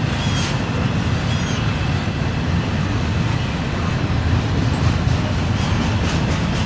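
Double-stack intermodal freight cars rolling past close by: a steady, loud rumble of steel wheels on rail. A few short, high wheel squeals come in the first second or so, and the wheels click over rail joints near the end.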